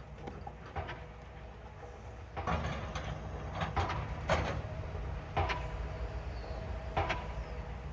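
Excavator at work: its engine rumbles and grows louder about two and a half seconds in, with repeated metallic clanks and squeaks.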